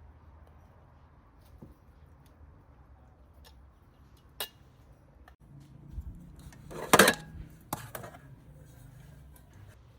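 Cookware clattering: a single click about four seconds in, then a cluster of loud clinks and knocks around seven seconds in and one more just after.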